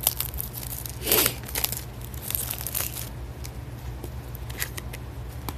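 A Shopkins blind-bag toy package being torn open and crinkled by hand: a loud rip about a second in, then more crinkling and small rustles.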